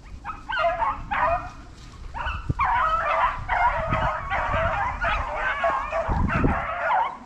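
A pack of rabbit hounds baying on a rabbit's trail during the chase, several voices overlapping, the cry filling in and growing steady from about two and a half seconds in.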